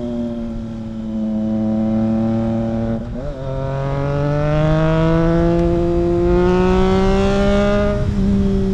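Triumph Trident 660's inline three-cylinder engine under way through a custom exhaust with no dB killer fitted, running a bit loud. The engine note sags slightly, breaks briefly about three seconds in, then climbs steadily as the bike accelerates, easing off near the end.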